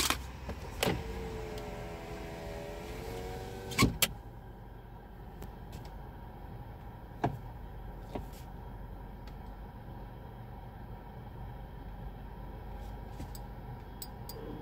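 Car power window motor whining for about three seconds as the glass goes up, ending in a thunk as it seats shut. After that, a low steady rumble with a few faint clicks.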